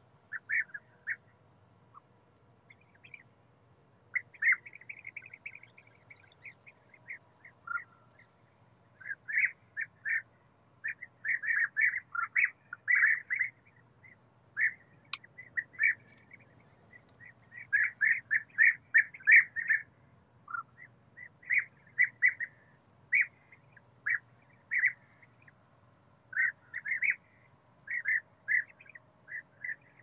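European bee-eaters calling: short calls repeated in quick bursts of several notes, with brief pauses between bursts.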